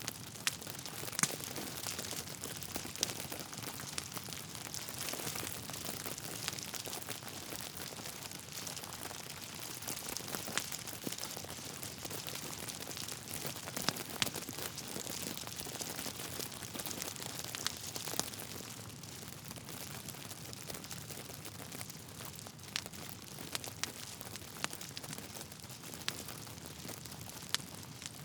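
Log fire in a fireplace crackling, over a steady hiss, with irregular sharp pops, a few louder than the rest.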